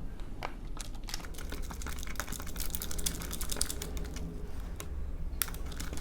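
Crunchy slime packed with beads being mixed as it is activated: a rapid, irregular run of small clicks and crackles.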